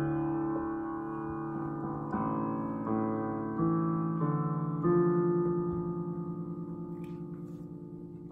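Yamaha digital piano playing slow, held chords. A new chord is struck every second or so and left to ring and fade, and the playing grows softer toward the end.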